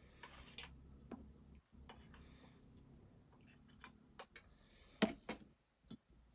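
Steel fork scraping and clinking on stainless-steel dishes as curried pork is served onto rice, with scattered light clicks and one louder knock about five seconds in. Crickets chirp steadily in the background.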